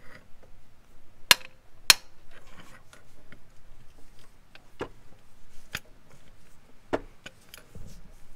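Ratchet and 14 mm socket working a power steering pump mounting bolt loose: two sharp metallic clicks about a second and a half in, then scattered lighter clicks and knocks of the tool.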